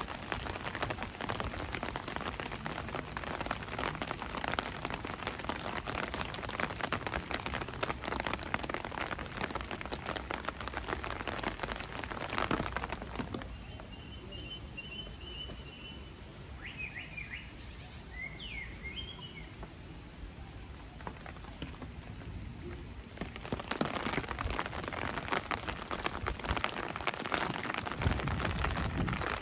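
Steady rain falling, a dense patter of many drops. From about 13 s to 23 s the patter suddenly drops away to a softer hush, a few short bird chirps come through, and then the full rain sound returns.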